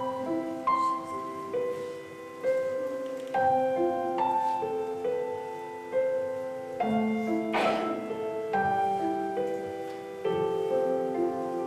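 Slow piano music, one chord or note after another, each struck and left to ring. A short burst of noise cuts across it about two-thirds of the way in.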